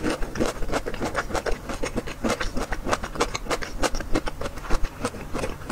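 Close-miked chewing of a crunchy, broth-soaked bamboo shoot from oden: a rapid run of crisp crunches, about five or six a second.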